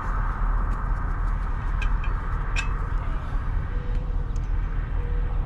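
Steady low rumble of an idling work truck's engine, with a few faint clicks about two seconds in.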